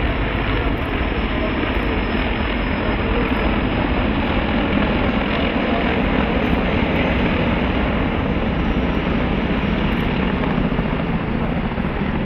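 Military helicopter flying past overhead: a loud, steady noise of rotor blades and turbine engines.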